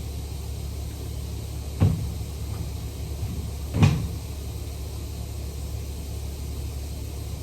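Two sharp knocks, about two seconds apart, from work on a wood chipper's anvil during gap adjustment, over a steady low hum of plant machinery.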